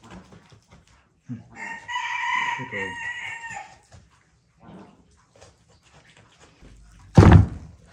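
A rooster crowing once, a call of about two seconds. Near the end, a single sharp, loud thump.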